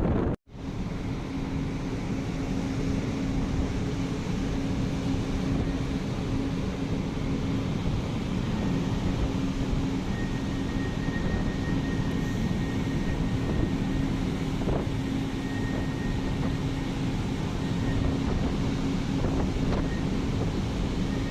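Strong storm wind buffeting the microphone, with a steady machinery hum underneath; the sound drops out briefly just after the start.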